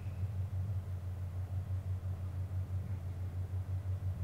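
A steady low hum that holds unchanged throughout.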